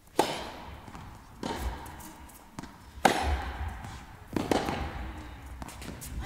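Tennis rally: racket strings hitting the ball about every one and a half seconds, the nearer player's strikes louder than the far player's, each echoing in an indoor tennis hall.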